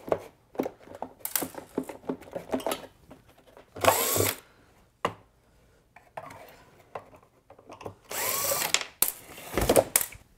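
Makita 18-volt cordless drill/driver with a Phillips bit backing screws out of a plastic engine shroud in short runs, its motor whining up and down, the two longest runs about four and eight seconds in. Clicks and knocks of the bit and screws come between runs.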